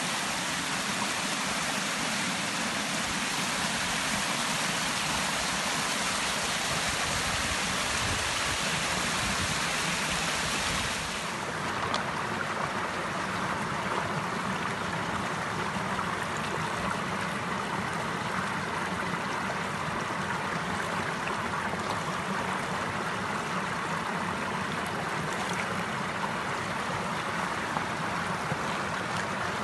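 Mountain stream running and splashing over a small rocky cascade. About eleven seconds in, the sound changes to a duller, lower rush of shallow water flowing over stones close by.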